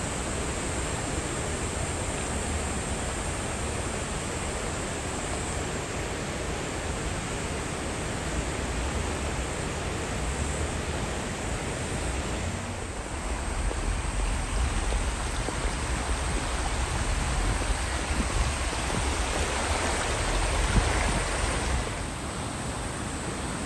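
Steady rushing of creek water. It grows a little louder about halfway through and drops back shortly before the end.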